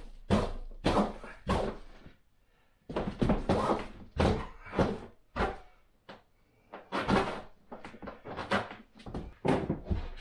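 Repeated knocks and clatter of an inflatable PVC boat's floor panels and seat bench being pressed on and shifted into place, with two short pauses.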